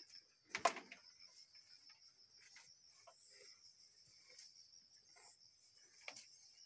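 Faint, steady high-pitched insect chorus, like crickets trilling, with one sharp knock about half a second in and a fainter click near the end.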